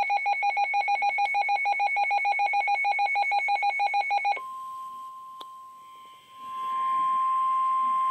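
Rapid electronic alarm beeping for about four seconds. It gives way to the steady 1050 Hz NOAA Weather Radio warning alarm tone, which swells much louder a couple of seconds later. Together they signal an incoming weather warning broadcast.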